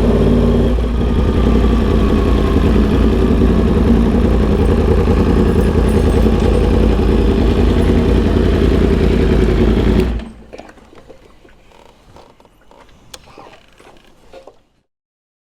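A 2021 Yamaha R1M's crossplane inline-four engine running steadily at idle, then switched off about ten seconds in. Faint clicks follow.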